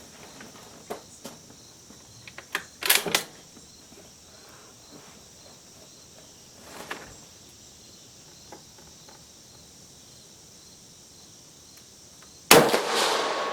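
A single rifle shot from a bolt-action 6.5mm Carcano M91TS carbine firing Hornady factory ammunition, sharp and loud with a decaying tail, near the end. Before it come a few light clicks and a louder rattle about three seconds in, over steady cricket chirping.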